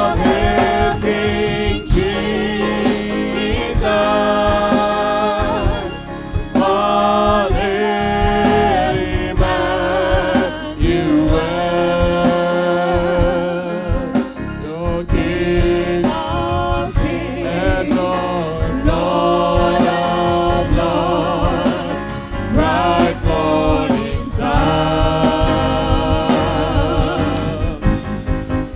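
Church worship team singing a gospel worship song over band accompaniment, with voices carrying wavering sung lines over a steady beat.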